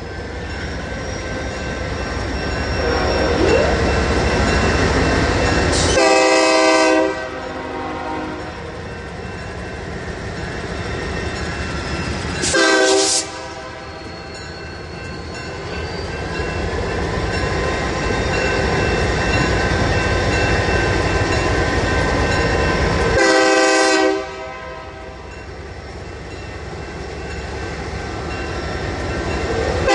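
BNSF GP39 diesel locomotive passing at slow speed, its engine running with a steady low rumble while its air horn sounds: a blast of about a second roughly six seconds in, a short one near the middle, another about a second long a little before the end, and one more starting right at the end.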